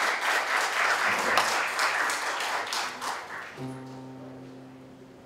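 Audience applauding, fading out over about three and a half seconds. Then a single low note is held steady to the end.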